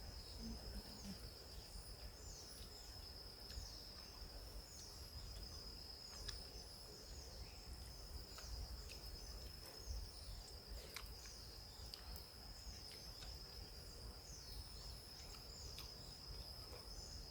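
Steady high-pitched trilling of insects, with a bird repeating a short falling call about once a second over it.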